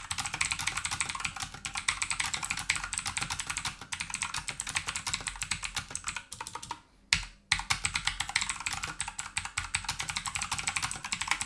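Fast typing on an Aukey 88-key mechanical keyboard: a dense, rapid clatter of key clicks. There is a short pause about two-thirds of the way through, then the typing picks up again.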